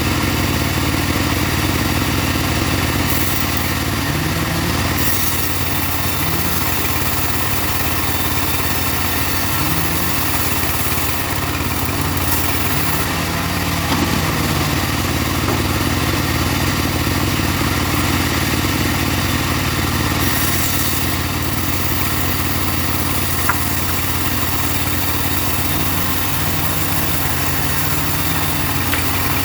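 Engine of a portable sawmill running steadily, a continuous low hum whose pitch wavers slightly now and then.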